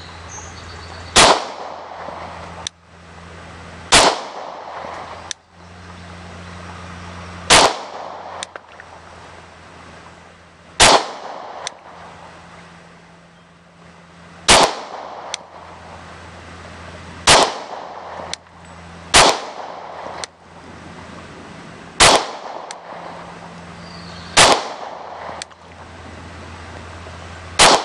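Glock 23 .40 S&W pistol fired in slow single shots: about ten sharp reports, one every two to four seconds, each with a short ringing tail.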